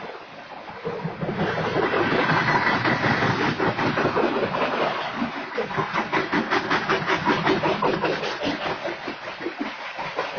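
Freight train of coal hopper cars rolling past, its steel wheels clattering rapidly on the rails. The clatter builds about a second in and eases off near the end.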